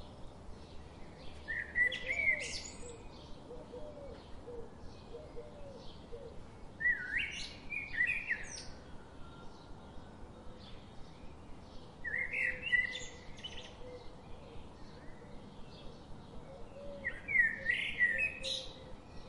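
Birds singing: a loud song phrase about every five seconds, four in all, over a steady run of faint short chirps.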